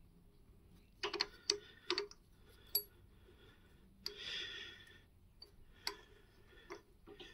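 Scattered light clicks and taps of metal on metal as a very tiny drill bit is fitted into a drill chuck by hand: a quick cluster about a second in, then single clicks, with a short rustle about four seconds in.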